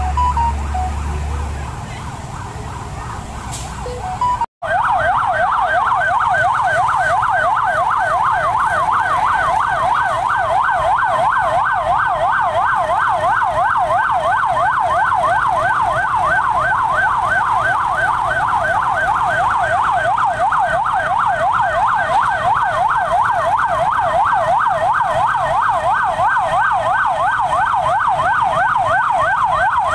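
Emergency vehicle siren sounding a fast, unbroken warble, starting abruptly a little over four seconds in after a short stretch of mixed street noise.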